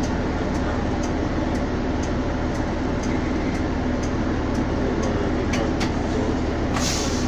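Steady engine hum and rumble of a city bus, heard from inside the cabin, with a short sharp hiss near the end.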